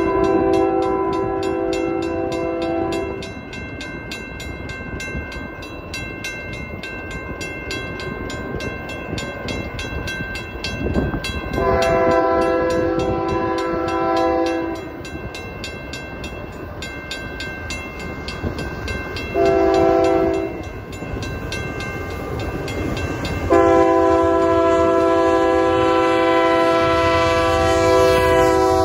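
Lead locomotive's air horn (Union Pacific GE AC44CW 6320) sounding the grade-crossing signal, long, long, short, long, over the steady ringing of a railroad crossing bell. The last long blast runs on as the locomotives reach the crossing, with a low rumble of engines and wheels underneath.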